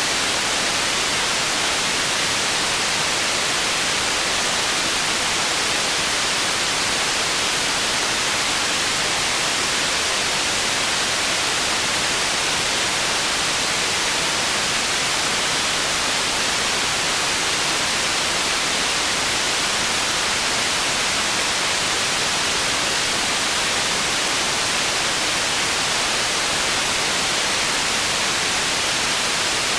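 Processed white noise for tinnitus masking: a steady, unchanging hiss, strongest in the high range and thinner in the bass.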